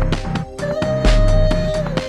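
Electronic music: held synth notes over a steady drum beat with heavy bass hits.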